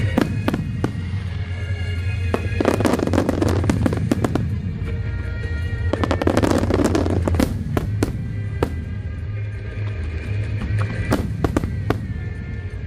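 Aerial fireworks bursting: many sharp bangs, with two dense stretches of rapid crackling, about two and a half seconds in and again around six seconds in.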